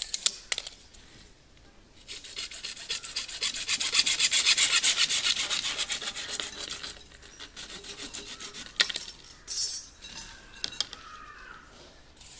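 Hacksaw cutting through white PVC pipe: a run of quick, rhythmic strokes starting about two seconds in and lasting some five seconds, followed by a few scattered scrapes and knocks as the saw and pipe are handled.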